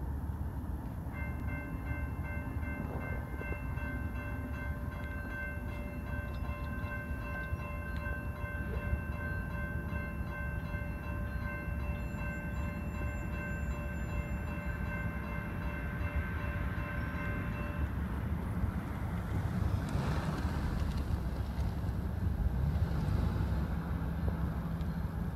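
A CSX freight locomotive's multi-chime air horn sounds one long, steady chord for about seventeen seconds as the train approaches a grade crossing. After the horn stops, the rumble of the locomotive and train grows louder as it reaches the crossing.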